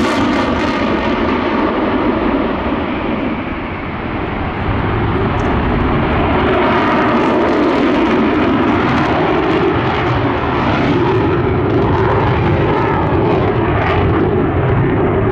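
Boeing F/A-18 Super Hornet's twin General Electric F414 afterburning turbofans at high power, afterburners lit at the start: loud, continuous jet noise that dips briefly about four seconds in and then swells again.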